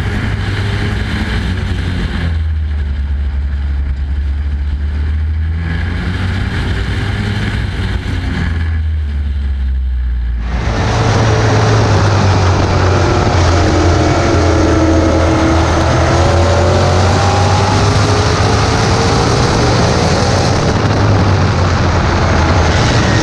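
Race truck engine heard from the onboard camera, running at racing speed, the note swelling and easing in turn. About ten seconds in it gives way to a louder open-wheel race car engine at speed, its pitch rising and falling.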